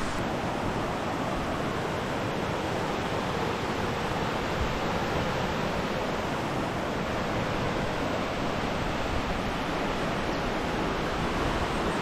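Mountain stream rushing over rocks in white-water rapids: a steady, even rush of water.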